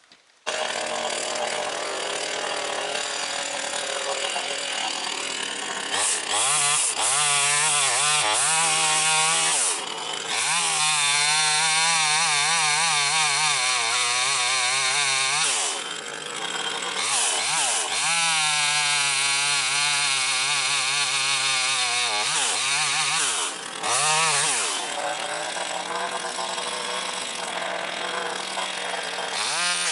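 HAIGE HG-TM32500A 25.4cc two-stroke chainsaw running at high revs while cutting logs. It comes in suddenly just after the start, with a wavering pitch. The pitch drops and picks up again about three times as the throttle eases between cuts.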